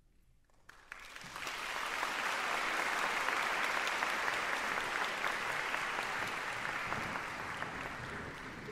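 Audience applauding. It starts out of near silence about a second in, swells quickly to a steady level, and eases a little near the end.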